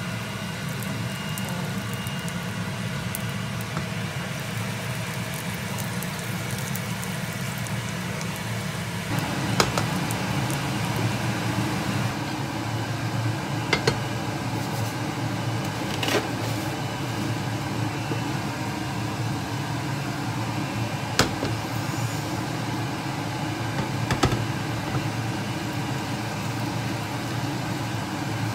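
A steady low whirring hum runs throughout and gets a little fuller about nine seconds in. Over it come about five sharp knocks as a frying pan is handled on a glass-ceramic cooktop.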